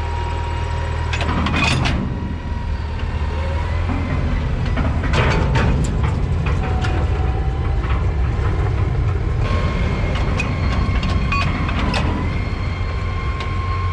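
Tractor engine running as it backs up to a farm wagon and pulls it away, with several sharp metal clanks and rattles as the Agri-Speed quick hitch snaps onto the wagon's pintle hitch and the wagon is drawn off.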